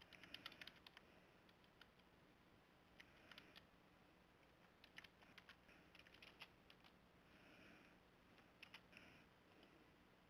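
Faint computer keyboard typing: several short bursts of keystrokes with pauses between them.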